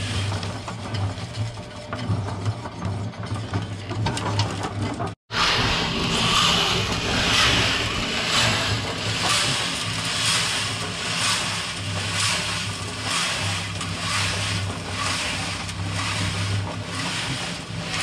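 Small electric cement mixer running, its motor humming steadily while concrete mix tumbles in the turning drum with a regular swish a little more than once a second. The sound cuts out for an instant about five seconds in, and the tumbling is louder afterwards.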